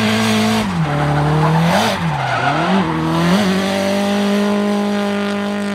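A drift car's engine revving, its pitch dropping and climbing again several times as the throttle is worked, with tyres squealing under it. From about three and a half seconds the engine holds one steady high note.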